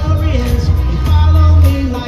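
Live pop band playing loud: a heavy kick-drum and bass low end, a steady cymbal beat, and a melodic line sliding between notes.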